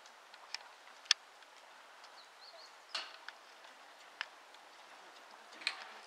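A handful of sharp clicks at uneven intervals, about one a second, over a low hiss, with a few faint bird chirps about halfway through.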